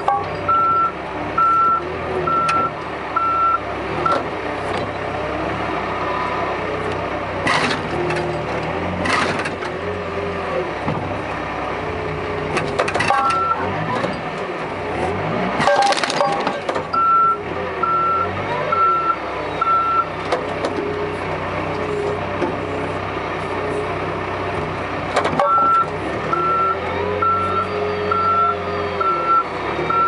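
Case 580 backhoe loader's diesel engine running and revving as it works dirt, with its reversing alarm beeping in three runs of about one and a half beeps a second. Several sharp knocks come in between.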